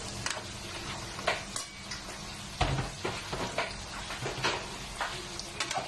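Spatula scraping and tapping against a non-stick wok as tofu cubes are stirred: irregular short scrapes and knocks, several times over a steady low background.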